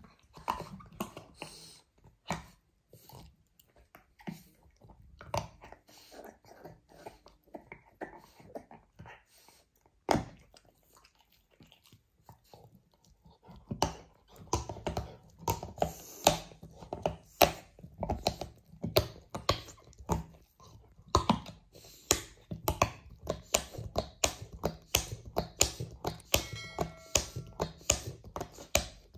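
French bulldog gnawing a hard blue chew toy: sharp clicking bites, sparse at first with a pause of a couple of seconds near the middle, then a steady run of about three bites a second.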